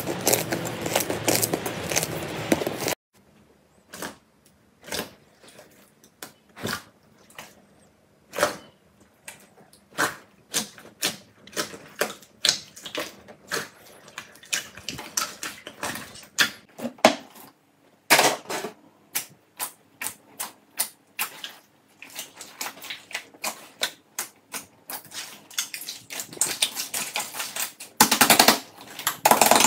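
Slime squeezed and pressed by hand: dense crackling for the first few seconds, then a long run of sharp pops and clicks from trapped air bursting in a glossy slime, one or two a second at first and quicker later, with another dense burst of crackling near the end.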